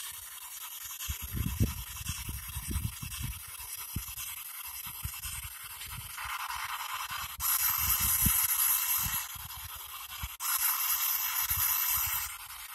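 P-SB7 spirit box sweeping radio frequencies, giving a steady hiss of static that jumps louder in stretches through the second half.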